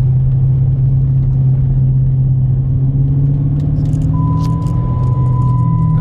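A Dodge Challenger R/T's 5.7-litre HEMI V8 running steadily, heard from inside the cabin as a loud, even low drone. A thin, steady high tone joins about four seconds in.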